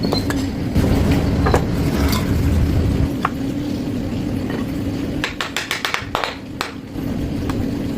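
Workshop noise: a low rumble with a steady hum, then a quick run of light, sharp taps or clicks starting about five seconds in.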